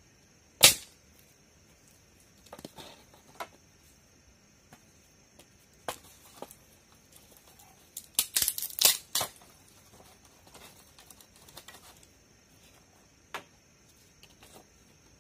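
Dry firewood sticks knocking and clattering against each other and the woven cane basket as they are packed in: a sharp knock about half a second in, a quick run of clatters around eight to nine seconds, and scattered lighter knocks between.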